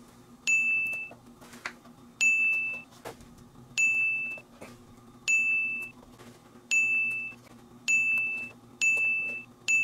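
A ding at one fixed pitch, repeated about seven times, roughly every second and a half and coming faster near the end, over a faint steady hum.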